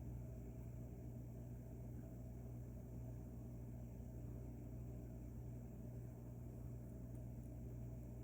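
A steady low hum with a light hiss over it, unchanging throughout, with two or three faint small ticks near the end.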